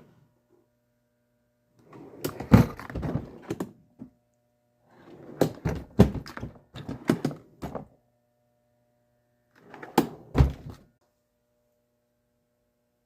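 Plastic drawers of a Milwaukee Packout drawer box being pulled open and pushed shut, with knocks and clunks and the contents rattling, in three bursts.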